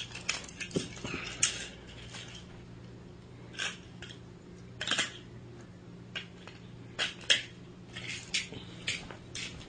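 Irregular light clicks and clatters of small hard objects, over a faint steady hum.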